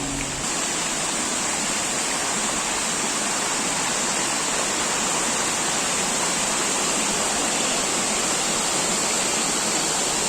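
Steady, even rushing of falling water from a waterfall.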